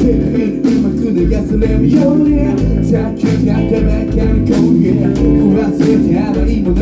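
Band music with guitar over a steady drum and bass beat, with no sung words.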